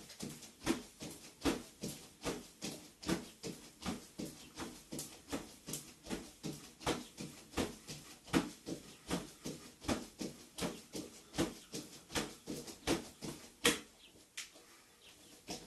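Feet landing on a wooden floor during jumping jacks: a steady run of thumps two or three a second, with a louder landing about every 0.7 s. The thumps turn lighter and quieter about two seconds before the end, as the jumping gives way to light hopping.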